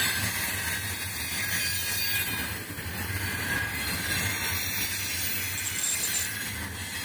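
Container flat wagons of a freight train rolling past on the rails: a steady low rumble of wheels on track under a high hiss of wheel and rail noise.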